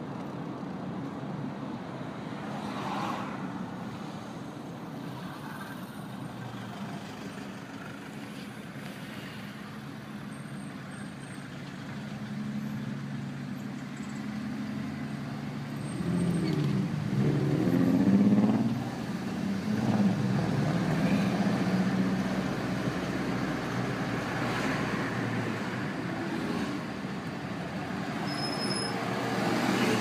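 City street traffic with engines running steadily. A vehicle engine grows louder from about halfway through, with its pitch rising and falling as it passes close, then eases back to the general traffic hum.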